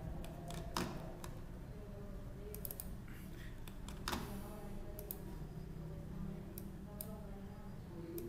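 Faint, scattered clicks of a computer mouse and keyboard, a few in quick pairs.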